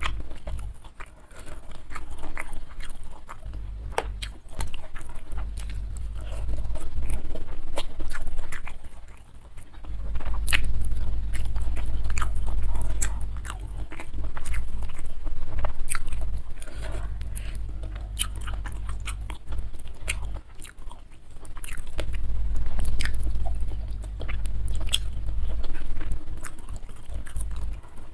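A person chewing and crunching food close to a clip-on microphone, with many sharp wet mouth clicks, in spells broken by short pauses.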